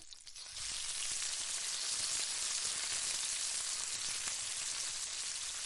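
Masala paste sizzling in hot oil in a pan: the steady hiss starts up sharply about half a second in as the paste goes into the oil with the whole spices, and keeps frying evenly.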